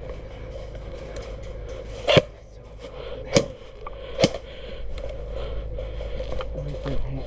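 Airsoft gun fired three single shots, each a sharp crack, the first about two seconds in and the other two about a second apart.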